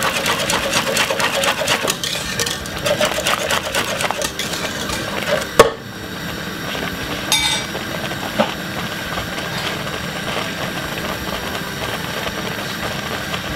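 Wire whisk beating thick porridge in a stainless steel pot, a fast run of rattling strokes against the pot, ending with one sharp knock about five and a half seconds in as the whisk is left in the pot. After that a steady noise with a couple of light clinks.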